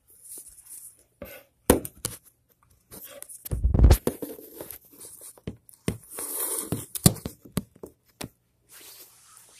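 Handling noise from a phone held against clothing: fabric rustling and scraping with scattered clicks and knocks, and one heavy thump about four seconds in.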